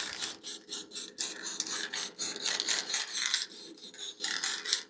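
Aerosol spray can of leather brown primer spraying in many short hissing bursts, dusting colour over a pile of small wooden sticks.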